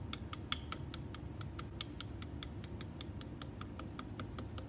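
Quick, light metal taps on a punch, about five or six a second and evenly spaced, gently tapping a CV joint's parts into place during reassembly.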